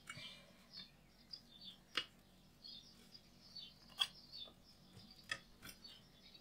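Small craft scissors snipping around a stamped paper cutout: faint snips and paper rustling, with a few sharper clicks of the blades, about two and four seconds in.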